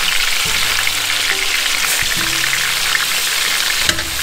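Two chuck eye roll roasts searing in hot avocado oil in a large oval pan, sizzling steadily, with a few short knocks as a fork turns the meat in the pan.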